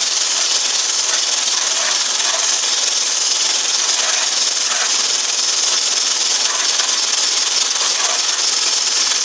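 Stick blender with a whisk attachment running steadily, whipping egg whites in a stainless steel bowl: a loud, even whirring hiss. The whites are at the foamy stage, well short of a stable meringue.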